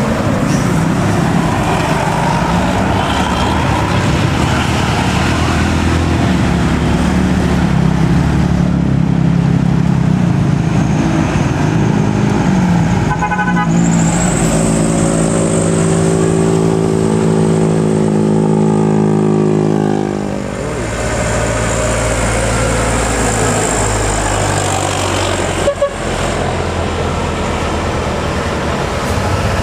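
Tour bus engine and road noise running loud throughout. Just past the middle a bus's multi-tone air horn sounds one steady held chord for about six seconds, then cuts off.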